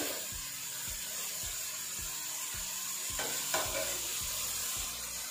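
Chicken and vegetables stir-frying over high heat in an aluminium karahi: a steady sizzle, with a metal slotted spoon scraping and knocking against the pan. The scraping is loudest about three seconds in.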